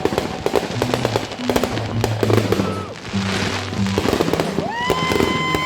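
Fireworks crackling and popping in rapid, irregular succession over music with a stepping bass line. Near the end a long whistle rises and then holds steady.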